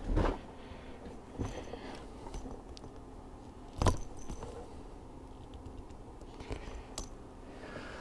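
Small clicks and light knocks from handling a fuel hose, primer bulb and pliers on a workbench, with one sharper click a little under four seconds in.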